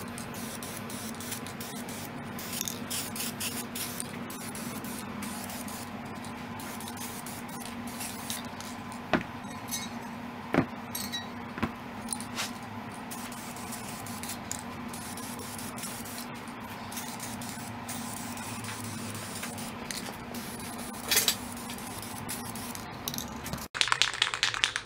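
Aerosol can of high-temperature silver wheel paint hissing in short bursts as it sprays steel motorcycle rims, with a few sharp clicks and knocks in the middle, over a steady low hum.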